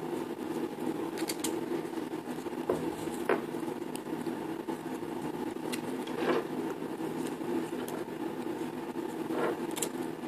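Hands buckling a leather dog harness on a Yorkshire terrier: faint rustling of fur and leather, with a few small sharp clicks from the buckle and metal fittings spread through it.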